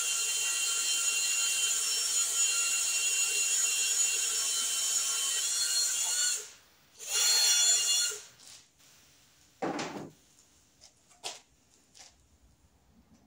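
Cordless drill with a step bit drilling out the end of a rubber motorcycle handlebar grip, its motor running with a steady whine. It stops about six seconds in, runs again for about a second, and a few light knocks follow.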